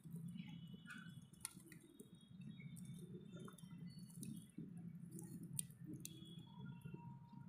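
Faint crackling of a small wood fire: scattered sharp snaps and pops over a low, steady background.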